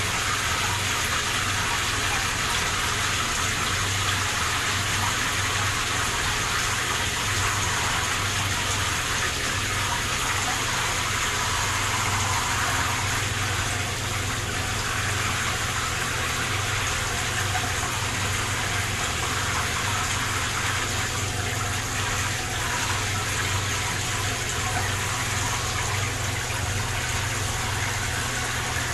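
Water from a shower spraying steadily into a shallow bathtub, a constant even splashing hiss.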